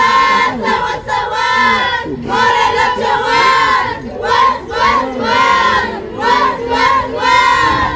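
Many voices giving loud, high-pitched cries in a string of short bursts, one after another.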